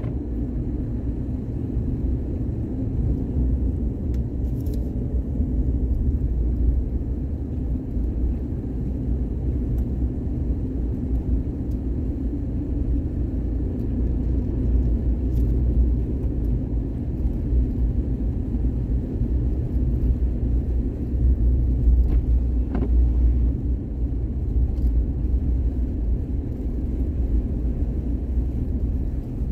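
Steady low rumble of a vehicle in motion, like a car's road and engine noise.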